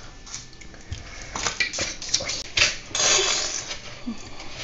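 A metal spoon clicking and scraping as it cuts soft butter on its paper wrapper and knocks pieces into a plastic bowl, then about three seconds in a longer scraping rustle as the spoon works through dry biscuit crumbs.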